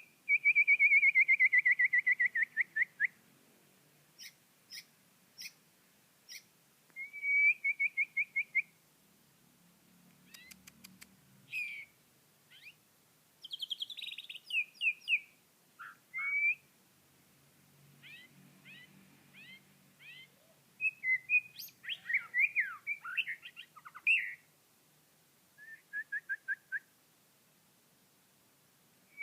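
A small songbird singing in varied phrases of rapid repeated chirps and short trills, some falling slightly in pitch, with brief pauses between phrases.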